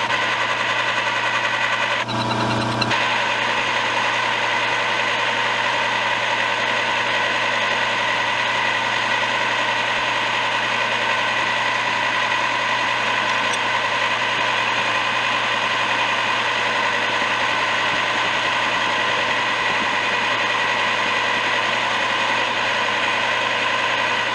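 Old knee-type milling machine running steadily while milling a metal barrel-clamp part: an even machine noise with several steady tones through it. The sound changes briefly about two seconds in.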